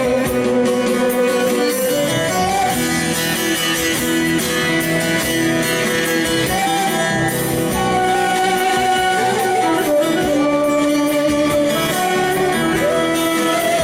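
Turkish folk music (türkü) played continuously, with plucked-string instruments and a melody of held, gliding notes.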